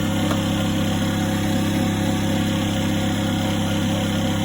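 Steady low engine drone, running evenly with no change in pitch or level.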